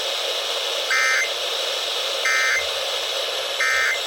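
Emergency Alert System end-of-message (EOM) SAME data bursts received over FM radio: three short, buzzy digital tone bursts about 1.3 seconds apart, signalling the end of a required monthly test. A steady radio hiss runs under them.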